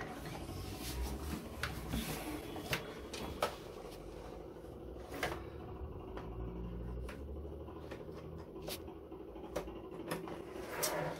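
Scattered small plastic clicks and knocks from a cable being handled and a DisplayPort plug being pushed into the rear port of a computer monitor.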